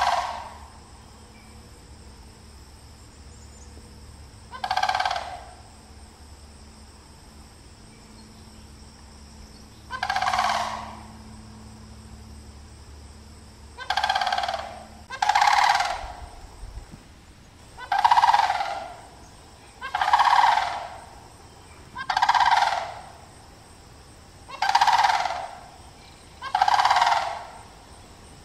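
A bird calling repeatedly, about ten calls each lasting under a second. The calls come about five seconds apart at first, then roughly every two seconds in the second half.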